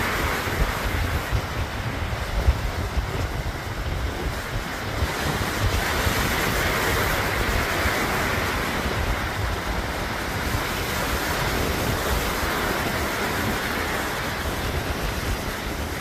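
Surf breaking and washing up a sandy beach in a continuous rush that swells around the middle, with wind rumbling on the microphone.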